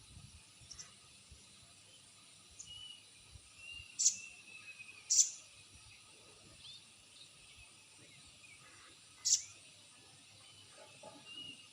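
Sogon bird calls of the kind played as a lure (pacingan) to make a silent sogon answer: three short, sharp high calls, twice close together about four and five seconds in and once more about nine seconds in, with faint thin whistled notes between them.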